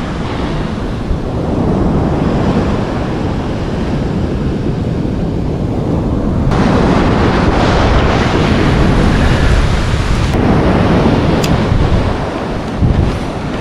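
Surf breaking and washing up a sandy beach, with wind buffeting the microphone.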